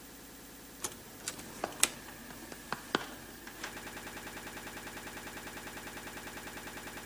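Tape recorder's control keys clicked about half a dozen times, then from about three and a half seconds in a steady hum with a fast even pulse as the tape plays back.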